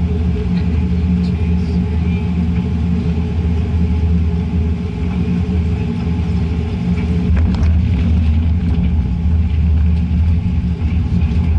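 Steady cabin drone of a Boeing 787-9 airliner in flight: engine and airflow noise heard from inside the economy cabin, a constant low rumble.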